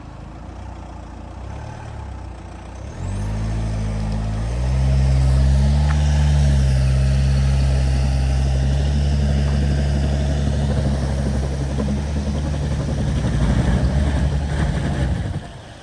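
A vehicle engine with a low, deep drone runs up about three seconds in and louder again a second and a half later. It holds steady with small shifts in pitch, then cuts off abruptly just before the end.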